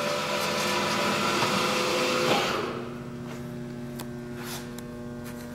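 Kalamazoo horizontal bandsaw running through its automatic cycle: a louder mechanical whir for about two and a half seconds, then a quieter steady hum with a few light clicks.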